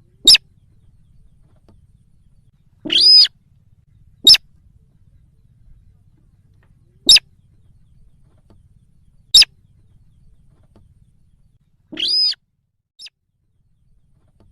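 Recorded calls of the sintar bird, played as a hunting lure. Short loud calls come every one to three seconds. Some are sharp single notes, others longer, with a higher ringing tone.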